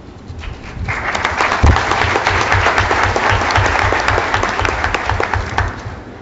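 Audience applauding; the clapping starts about a second in and dies away near the end.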